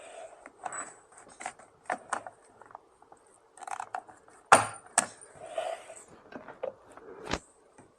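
Plastic weather-station sensor housing being handled and its cover fitted back on: a string of clicks, knocks and light scrapes, with two sharp clicks about halfway through and another near the end.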